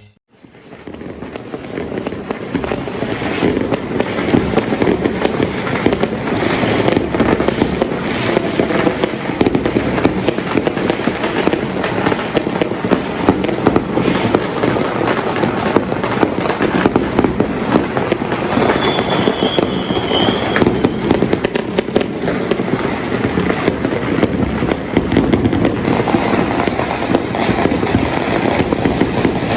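Dense, continuous crackling and popping of many Chinese New Year fireworks and firecrackers going off at once, rising from silence over the first few seconds. A short high whistle cuts through about twenty seconds in.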